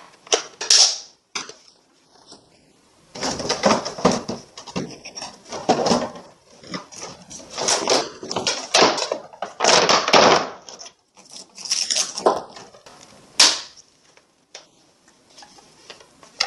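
Hard plastic toy parts and a clear plastic blister tray being handled: irregular rustling, knocking and clicking, with a sharp click near the end.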